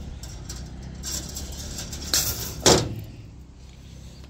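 Galvanised tie wire being pulled off its coil and handled, a light metallic rustling and jangling, with two loud sharp metallic clicks about two seconds in.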